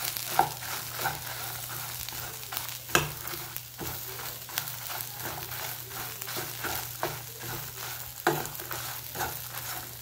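Dried red chillies, coriander seeds, onion and garlic frying in a little oil in a non-stick pan, stirred with a spatula: a steady sizzle with repeated spatula scrapes and knocks against the pan, the sharpest about half a second, three seconds and eight seconds in. A low steady hum runs underneath. The spices are being roasted for a ground masala paste.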